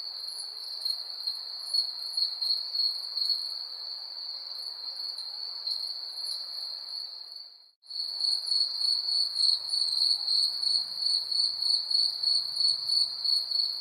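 Crickets trilling steadily at a high pitch. The sound cuts out briefly just before the middle, then comes back with a louder, pulsing chirp about two to three times a second.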